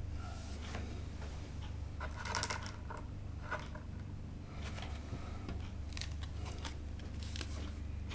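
Batteries and their packaging being handled: scattered small clicks and light metallic clinks, with a quick cluster of clinks about two and a half seconds in, over a steady low hum.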